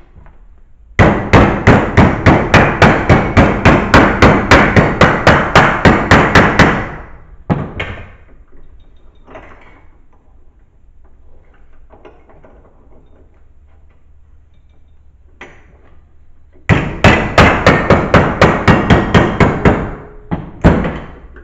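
Hammer blows on a sheet-metal patch clamped in a vise, bending it along a marked line: a fast, even run of strikes, about five a second, for some six seconds, then a pause with light handling sounds, a second run of about three seconds, and one last blow near the end.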